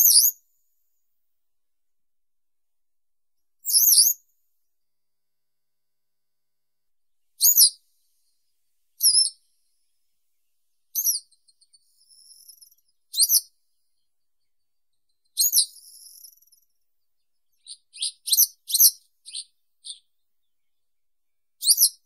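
Western yellow wagtail (Motacilla flava) giving short, high-pitched call notes, one every two to four seconds. About eighteen seconds in comes a quicker run of half a dozen notes.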